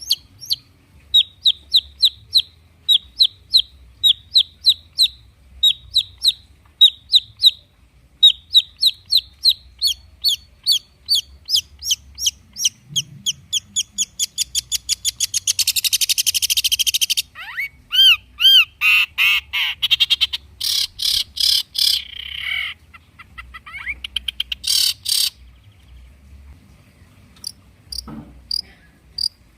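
Long-tailed shrike (cendet) singing a lure song of short, sharp repeated chirps. The chirps speed up into a rapid trill, then break into harsh scratchy bursts with a few rising whistled slurs, and thin out to scattered notes near the end.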